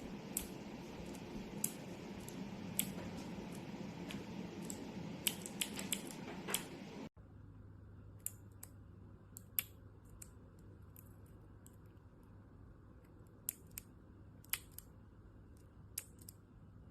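Cherry MX mechanical keyboard switches on a switch tester being pressed one at a time: scattered sharp clicks, one or two a second, over a low steady hum. The hum drops abruptly about seven seconds in, and the clicks come more sparsely after that.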